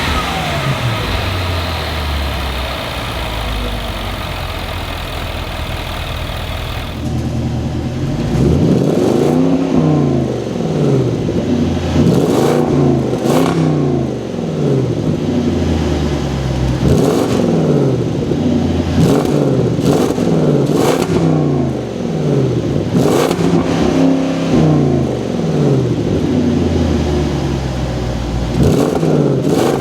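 Supercharged 5.0-litre V8 of a 2025 Land Rover Defender 110 running, its note fairly steady at first. From about seven seconds in, the engine pitch climbs and drops again and again, with occasional sharp cracks.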